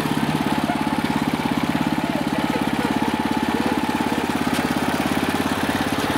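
Walk-behind tiller's small single-cylinder petrol engine running steadily, a fast even chugging, as the machine is walked along a path.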